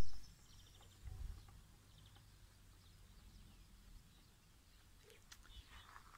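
Quiet outdoor ambience: low wind rumble on the microphone, swelling about a second in, with a few faint, short bird chirps. A short pop right at the start.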